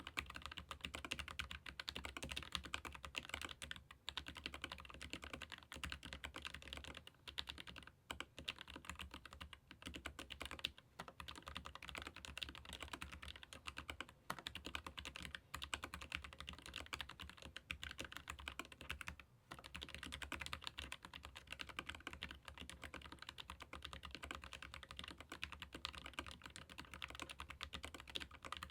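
Continuous fast typing on a Keychron K15 Pro Max mechanical keyboard with Gateron low-profile red linear switches: a dense run of light keystroke clacks with only brief pauses.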